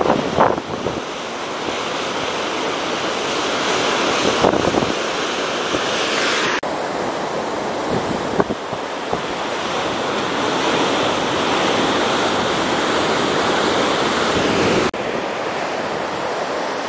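Ocean waves breaking and washing, a steady rushing noise, with wind buffeting the microphone in a few short gusts. The sound shifts abruptly twice, about a third of the way in and near the end.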